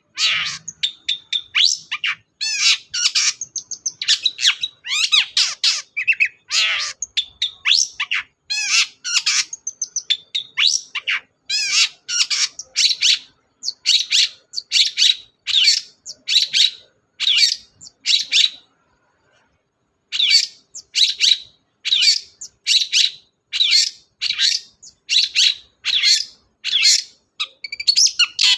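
Long-tailed shrike (cendet) singing hard: a fast, loud series of short harsh chirps and whistled notes, breaking off briefly about two-thirds through, then resuming in an even run of about two notes a second.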